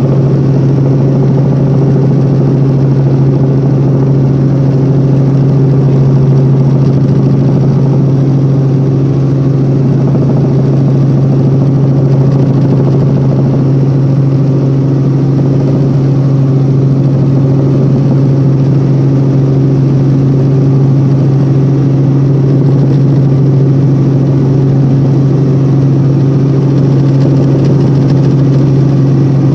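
Helicopter in steady flight heard from inside the cabin: a loud, constant drone with a strong low hum that does not change.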